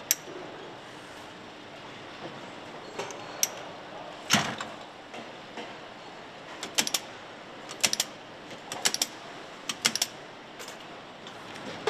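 Steady factory-floor hum with scattered sharp metallic clicks and clacks as engine parts are handled and set into fixtures on an engine assembly line; the loudest knock comes about four seconds in, and quicker clicks bunch up in the second half.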